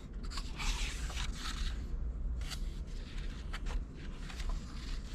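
Paper pages of a hardcover picture book being turned by hand: a longer swish about a second in, then short crinkles and light taps as the pages are flattened.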